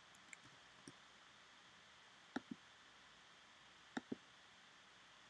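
Faint computer mouse clicks in near silence: a few single clicks, then two quick double clicks a second and a half apart.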